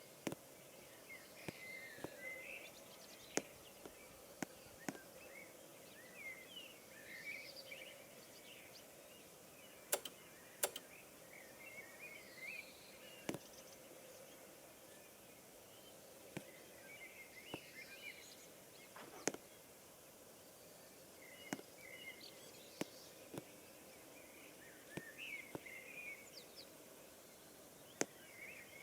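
Faint outdoor ambience: a low steady hiss with scattered short, high chirps and about a dozen sharp clicks spread through it.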